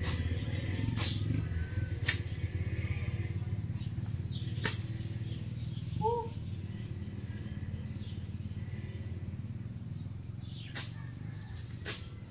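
Machete strokes slashing through grass and weeds: several sharp strikes about a second apart in the first two seconds, one more a little later, and two more near the end, over a steady low rumble.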